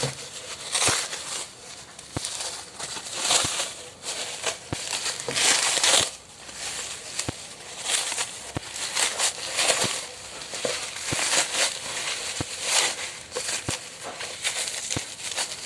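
Bubble wrap crinkling and rustling as it is unwrapped from a paperback book, in irregular bursts with scattered sharp clicks.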